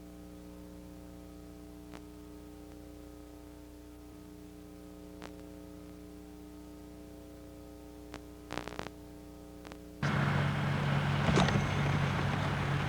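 Faint steady electrical hum with a few soft clicks. About ten seconds in it cuts over abruptly to the camcorder's outdoor sound: a loud, even rush of wind on the microphone over a low steady hum.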